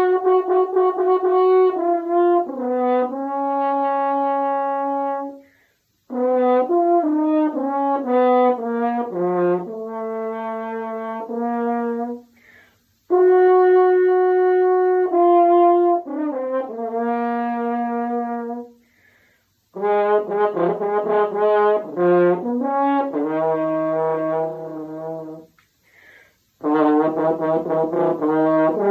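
Solo French horn playing a melody in phrases of about six seconds each, with a quick breath between phrases.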